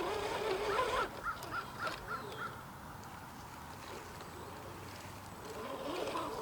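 A bird calls a quick run of about six short notes a second or so in. The RC crawler's electric motor whines, wavering in pitch with the throttle, at the start and again near the end.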